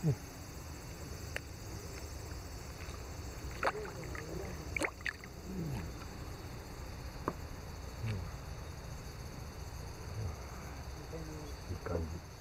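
Water sloshing and splashing as a caught herabuna is let back into the lake from a mesh net, with occasional sharp knocks and clicks.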